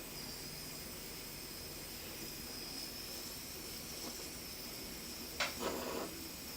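Heat gun running, a steady airy hiss with a thin high whine, shrinking heat-shrink tubing over a crimped wire connector. A couple of sharp clicks from handling sound a little over five seconds in.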